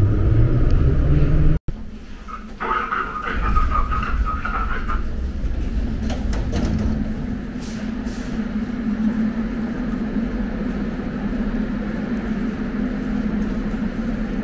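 St. Petersburg metro train noise: a low rumble inside the carriage that cuts off abruptly just under two seconds in, then on the platform a short high tone followed by the steady hum of a train standing at the station.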